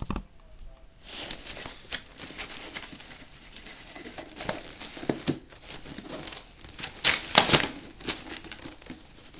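Cardboard box and packing being handled and opened by hand: irregular rustling, scraping and light knocks, with a louder burst of rustling about seven seconds in.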